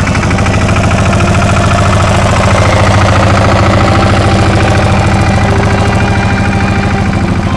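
Pasquali compact tractor's Lombardini diesel engine running as the tractor drives close past, a fast, even chugging that is loudest about three seconds in.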